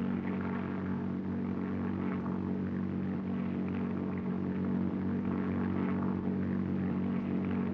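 Propeller airplane engine droning steadily in flight, an even low hum.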